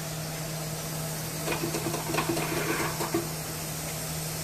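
Steady low hum with a constant hiss in a small room. From about a second and a half to three seconds in there is a cluster of light clicks and rustles, as the basket and bowl of green beans are handled.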